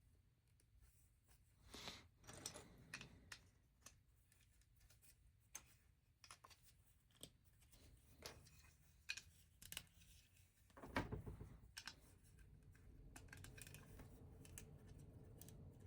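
Faint, scattered clicks and taps of plastic LEGO bricks being handled and pressed together, with a louder rustle of pieces about eleven seconds in.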